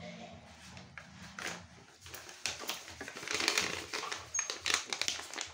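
A small handmade paper packet being handled and opened by hand: paper rustling and crinkling with quick ticks and scrapes, busier in the second half.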